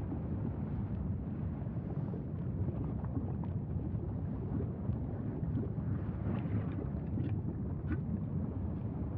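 Lava fountains at an erupting volcanic fissure giving a steady low rumbling roar, with a few faint cracks about two-thirds of the way through.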